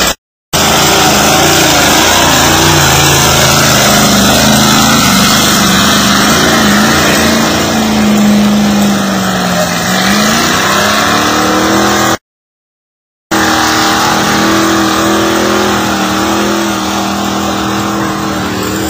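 Mud-bog pickup truck engine running hard at high revs through a water-filled mud hole, its pitch sagging and climbing under a loud wash of noise. The sound cuts out completely for about a second partway through.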